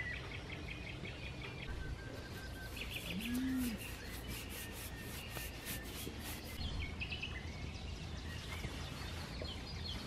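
Songbirds chirping and singing over a low rural background, with one short low moo from a cow about three seconds in.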